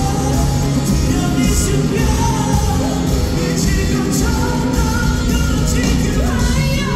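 Live pop song played loud through an arena's sound system: male vocalists singing into handheld microphones over a backing track with a steady heavy beat, echoing in a large hall.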